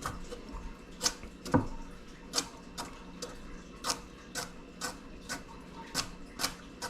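Kitchen knife chopping carrots on a cutting board: sharp, separate knocks of the blade hitting the board, about two a second at an uneven pace.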